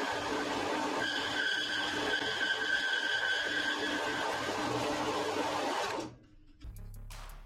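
Holzmann BS 115 metal bandsaw running steadily, a machine noise with a high ring over it, which cuts off abruptly about six seconds in. Background music starts near the end.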